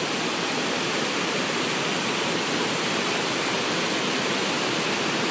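Mountain creek running high over rocks and logs: a steady, even rush of water.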